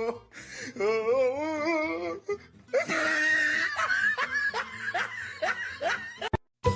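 A person laughing: a wavering voiced laugh, then a long run of short laughing bursts, cut off abruptly near the end.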